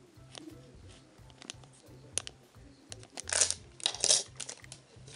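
Clear plastic resealable bag crinkling as small metal filigree pieces are handled and taken out, with scattered light clicks. There are two louder rustles about three and four seconds in.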